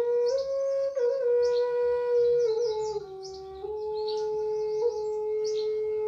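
Native American flute playing slow, long held notes with small grace-note flicks, stepping down to a lower note about three seconds in.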